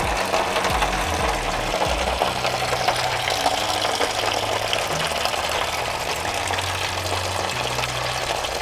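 Engine coolant draining in a steady stream from a radiator drain into a disposable aluminium foil tray, splashing and foaming as it lands: the cooling system being emptied for a radiator replacement.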